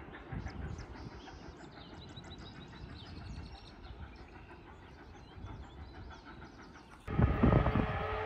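Low background rumble with faint high chirps. About seven seconds in it cuts suddenly to the loud rumble of the Canadian Pacific 2816 steam locomotive, with the steady chord of its whistle beginning to sound.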